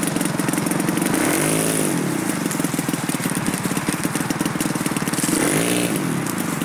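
Engine of a 40% scale Yak-54 RC plane running at low throttle as it taxis on grass in a ground test. Its revs briefly rise and fall twice, about a second and a half in and again near the end.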